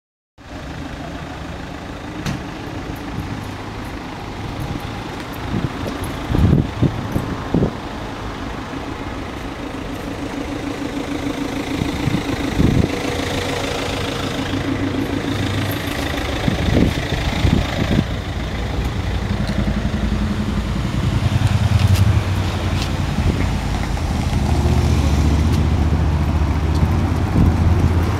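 BMW M5's V10 engine idling steadily through an Eisenmann aftermarket exhaust. It grows louder and deeper in the second half, and there are a few short sharp sounds along the way.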